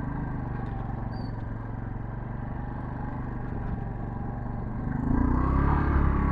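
Motorcycle engine running at low revs, then revving up louder and higher in pitch about five seconds in.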